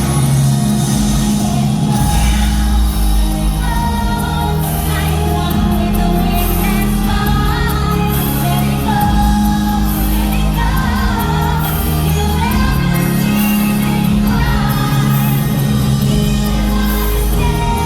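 Loud show music with singing over a steady bass accompaniment.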